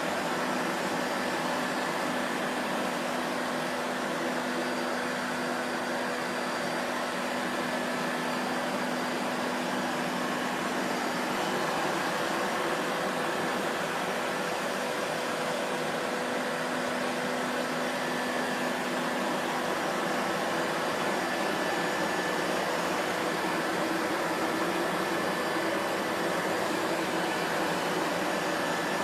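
Vacuum cleaner motor running steadily, an even rushing whir with a faint hum, with no changes in pitch or loudness.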